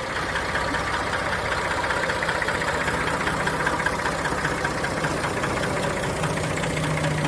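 Massey Ferguson 360 tractor's three-cylinder diesel engine running steadily, with a low hum that grows stronger near the end.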